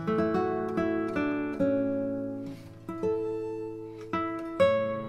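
Background music: acoustic guitar playing plucked and strummed chords, each chord ringing out and fading before the next.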